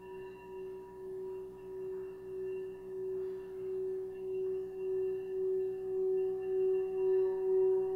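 Hand-held metal singing bowl played by rubbing a mallet around its rim: one steady singing tone that slowly swells, pulsing in a slow, even wobble, with a higher overtone joining about halfway through.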